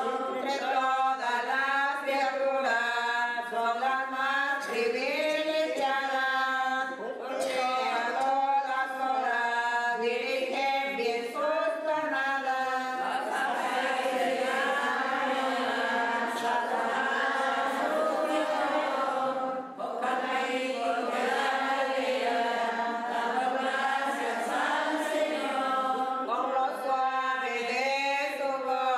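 A church congregation, mostly women's voices, singing a hymn together without instrumental accompaniment.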